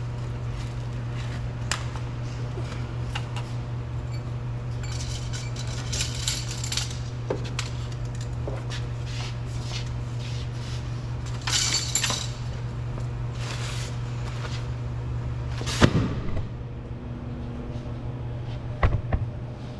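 Scattered clinks, clicks and rustles of tools and car door parts being handled, over a steady low hum, with a sharp knock about three-quarters of the way through.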